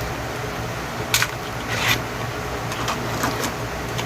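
Small plastic clicks and scrapes as the E88 mini drone's battery pack is taken out: two sharper clicks a little over a second in and just before two seconds, then a few lighter ones.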